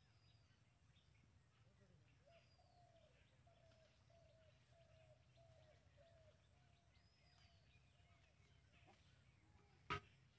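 Faint bird calls: a run of short, even notes repeated about twice a second, with thin higher chirps over a faint low hum. A single sharp click comes near the end.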